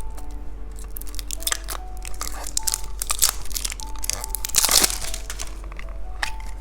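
Plastic candy packaging crinkling and crackling as it is handled and opened, with a louder burst of crinkling about three quarters of the way through. A soft melody plays underneath.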